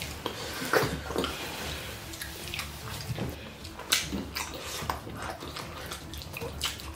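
Wet smacking, squelching and chewing of two people eating goat meat and fufu in sticky ogbono soup with their bare hands, with irregular sharp smacks of lips and fingers.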